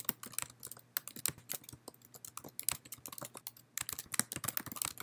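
Typing on a computer keyboard: an irregular run of key clicks, with a faster flurry near the end.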